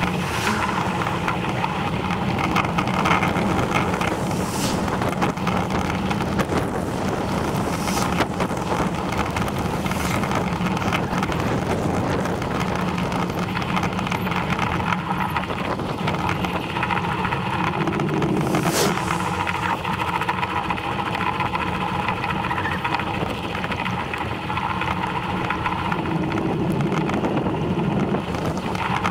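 Steady road noise of a bicycle rolling along a tarmac lane: tyre rumble with a constant hum, and a few sharp clicks.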